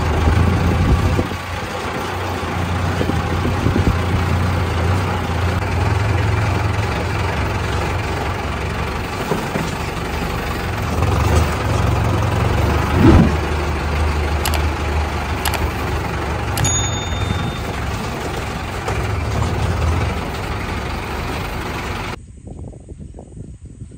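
Mahindra Arjun Novo 605 DI-i tractor's diesel engine running steadily with a deep hum as the tractor drives, heard from the driver's seat, with one brief knock about halfway through. Near the end the engine sound cuts off abruptly, leaving a faint outdoor hiss.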